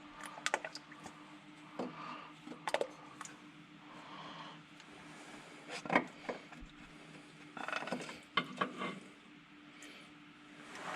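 Scattered clicks and light knocks of the GT350's oil filter housing cap being unscrewed by hand and handled, over a steady low hum.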